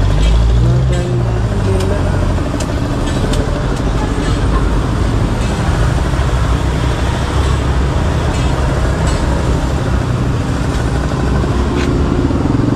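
Steady road traffic noise: motor vehicle engines and a constant low rumble.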